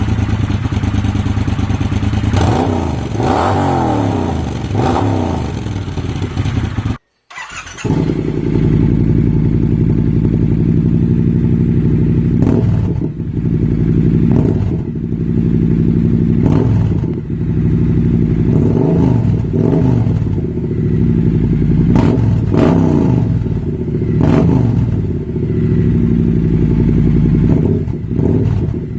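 Triumph T120 parallel-twin motorcycle engine idling through its exhaust and revved in short throttle blips. The revs rise and fall several times, the sound cuts out about seven seconds in, then it idles again with a quick blip every couple of seconds.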